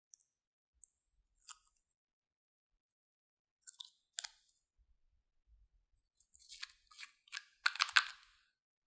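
Glossy slime being squeezed and worked by hand, making sticky crackles and pops: a few scattered at first, then a quick run of them near the end.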